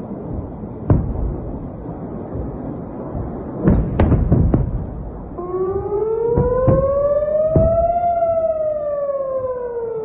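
Air-raid warning siren that starts about halfway through, rising slowly in pitch and then falling, over a constant rumble. Sharp booms of explosions in the sky cut in about a second in, in a quick cluster around four seconds, and a few more while the siren rises.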